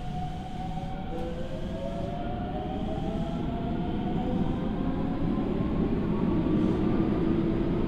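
Hokuso Railway Type 9100 electric train accelerating, heard from inside the car. The Toyo Denki VVVF inverter and traction motors whine in several tones that climb steadily in pitch, shifting about a second in. Wheel and running noise rise underneath and grow louder.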